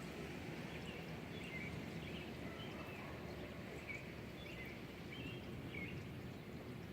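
Several birds giving short chirps over steady low background noise.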